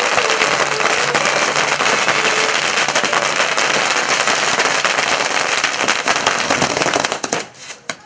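A string of firecrackers going off in a rapid, continuous run of loud bangs. The run stops abruptly about seven seconds in, leaving a few last separate pops.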